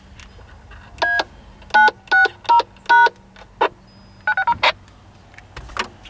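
DTMF keypad tones from a handheld radio: five separate two-tone beeps, A-9-6-0-#, the PIN access code for remote control of a Kenwood TM-V71A, followed by a quick flurry of shorter beeps and a few clicks. No answer-back tone follows; the operator thinks the code was keyed too slowly to be accepted.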